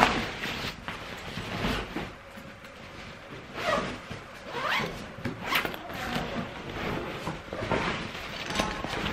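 Zipper of a nylon duffel bag being zipped shut in several short pulls, each a rasp rising in pitch, after a thump at the start.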